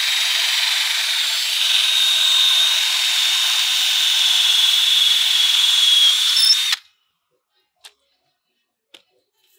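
Cordless drill running steadily at speed with a high whine as it bores a test hole through the fiberglass hull at the lead keel, then stopping abruptly about seven seconds in. A couple of faint clicks follow.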